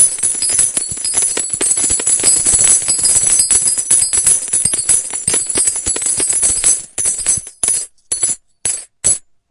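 Large metal coins pouring down and clinking against each other in a dense, continuous jingle. The jingle thins out about seven seconds in to a handful of last separate clinks, then stops.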